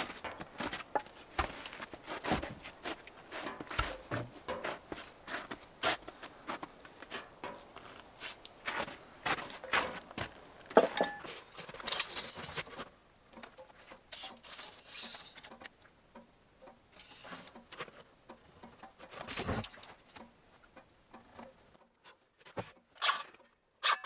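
Irregular taps, knocks and rustles from someone moving about and handling wooden boards, with footsteps in snow. They are dense for the first half, with a sharper knock about 11 seconds in, then thin out to a few scattered knocks.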